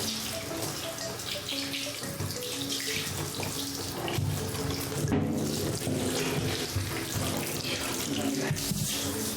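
Running water splashing steadily, with light background music of short plucked-sounding notes.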